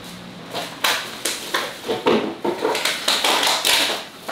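Dishes and utensils knocking and clattering together at a sink during washing-up: a quick, uneven run of light knocks.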